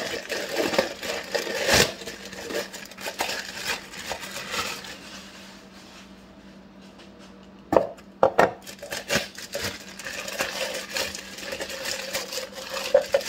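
Plastic bags crinkling and rustling as hard plastic juicer catching trays are unwrapped, with a quieter pause partway through and two sharp knocks of hard plastic about eight seconds in.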